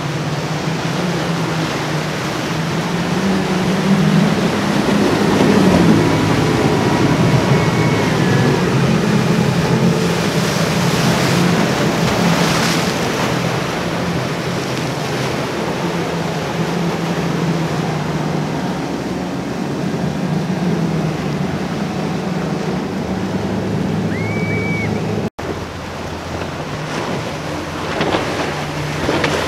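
Outboard engines of Boston Whaler boats running at speed, a steady low drone under the rush of waves and splashing wake, with wind buffeting the microphone.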